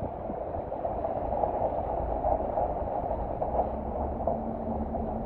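Steady hiss of rain falling on a wet street, with no single event standing out.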